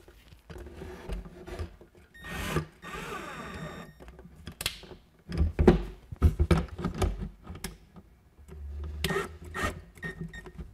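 Cordless drill-driver running in two short bursts, driving screws through a concealed hinge's mounting plate into a wooden cabinet face frame. Between the bursts come a series of sharp knocks and clicks from the door, hinge and drill being handled.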